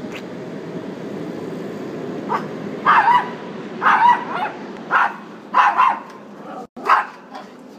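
Small terrier-type dog barking about six times in quick succession, starting a couple of seconds in, over a steady low background rumble.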